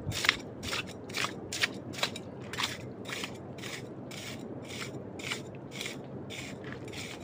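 Footsteps crunching over dry ground at a walking pace, about two steps a second.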